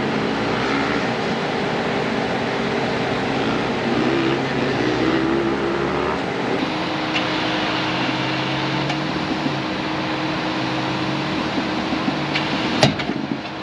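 Titan V8-swapped Nissan Xterra crawling up rocks, its engine running steadily, the engine note shifting about six and a half seconds in. Near the end there is a single sharp crack, the front CV axle breaking on the climb.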